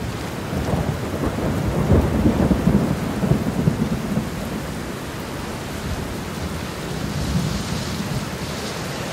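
Steady rain with low rolling thunder, the rumble strongest from about one to four seconds in.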